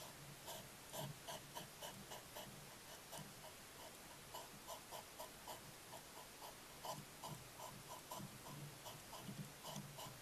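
Hedgehog eating from a shallow feeding dish: faint, irregular smacking and crunching clicks, a few a second.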